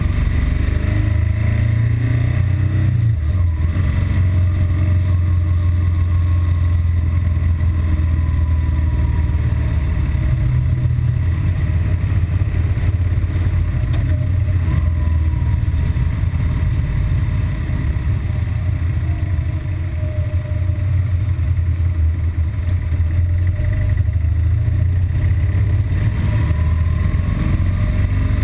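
BMW R1200GS Adventure's flat-twin engine running under way, its note shifting a few times with the throttle. The engine is still running normally, not yet showing its intermittent stalling and rough-idle fault.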